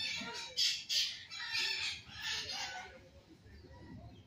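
Birds squawking: a quick run of loud, harsh calls over the first three seconds, then fading to quieter calling.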